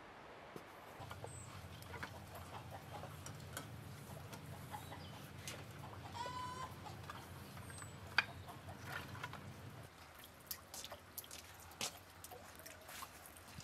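Split firewood logs knocking and clattering as they are picked up from a pile and gathered into an armful, with one sharp knock about eight seconds in. A chicken clucks once about midway, over a low steady hum.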